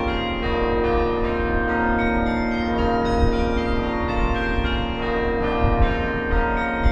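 Carillon music: tuned bells, played from a keyboard, ring a slow melody. Each note rings on and overlaps the next, with a new note coming about every second.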